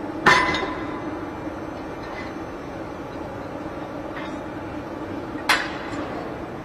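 Steady hum of heavy forging machinery in a forge shop, broken by two loud metallic clanks about five seconds apart. The first clank rings briefly.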